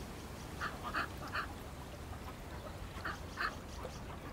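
Ducks quacking: three short quacks in quick succession about a second in, then two more a little past the middle, over a low steady background rumble.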